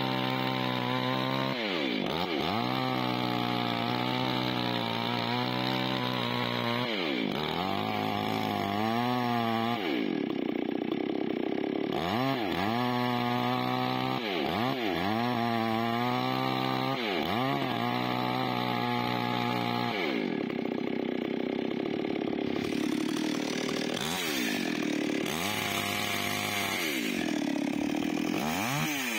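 Chainsaw running while cutting wood. Its engine pitch dips sharply and climbs back up again and again, every second or two.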